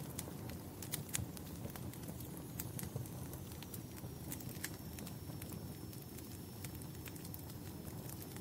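Fire crackling: irregular sharp pops and snaps over a low steady rumble of the flames. A faint high thin whistle sets in about two and a half seconds in.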